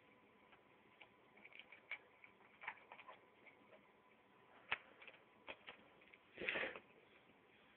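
Faint, irregular clicks of plastic Lego pieces being handled and pressed together, with a brief louder rustle about six and a half seconds in.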